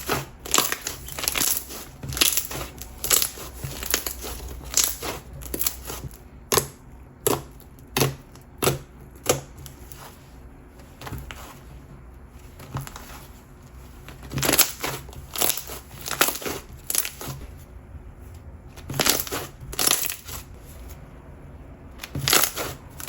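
Thick jelly slime being squeezed and stretched by hand, giving crisp bubble pops and crackles that come in irregular clusters with quieter gaps between.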